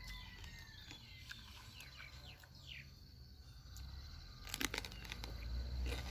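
A bite into a crisp raw yellow snack pepper about four and a half seconds in, a quick cluster of crunches followed by chewing. Faint bird chirps come in the first three seconds.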